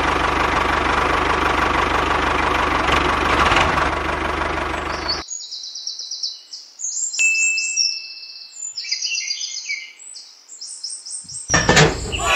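Miniature toy tractor running with a steady engine-like sound that cuts off abruptly about five seconds in. Then birds chirp, with a knock near the end.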